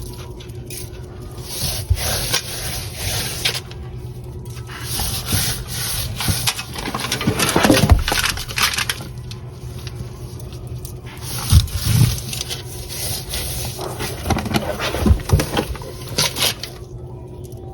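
Seasoning raw pork ribs by hand: coriander sprinkled on and rubbed into the meat, heard as uneven stretches of rustling and scraping with a few soft knocks. A faint steady hum runs underneath.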